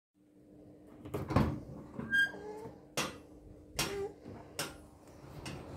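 A handful of sharp knocks and clicks, spaced under a second apart, one with a brief high squeak, over a faint steady hum.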